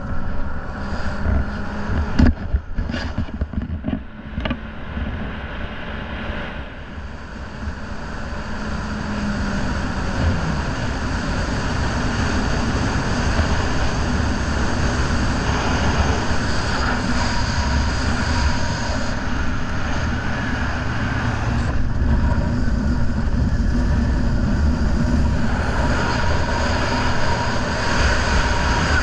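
Racing riverboat's outboard motor running hard at speed, with wind and water rush over it. A few sharp knocks come in the first few seconds. The engine note dips about ten seconds in, then the sound builds and holds steady.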